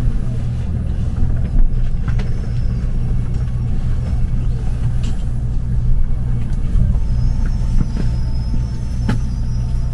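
Steady low rumble of a Gimpo Goldline light-metro train heard from inside the car as it comes into its final stop, with a few faint clicks. A thin high whine joins about seven seconds in.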